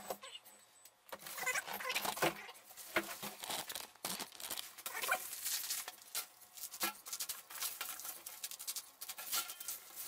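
Stainless steel bird cage being unpacked: its wire bars rattling and clinking as it is handled, with cardboard box rustling and scraping, in an irregular run of metallic clinks and rustles.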